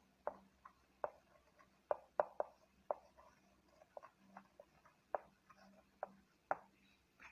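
Faint writing sounds: a dozen or so short, irregular taps and scratches of a pen or marker being written with.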